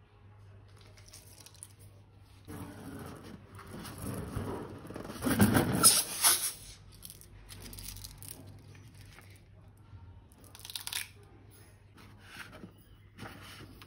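Crunching and crinkling handling noises of slime and its plastic being squeezed and worked by hand. They are loudest for about a second and a half, from five to six and a half seconds in, with shorter bursts near eleven and thirteen seconds.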